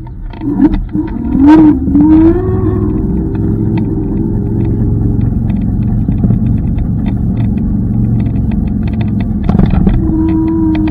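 Electric scooter riding over pavement: a steady low road-and-wind rumble with many small knocks from bumps, and a whine that rises about a second and a half in and holds for a few seconds before fading.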